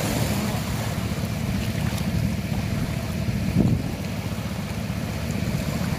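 Wind rumbling on the microphone over small waves washing at the shoreline, with one brief louder thump about three and a half seconds in.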